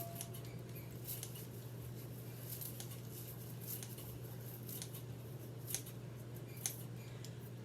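Kitchen scissors snipping greens: light, sharp snips at irregular intervals, over a steady low hum.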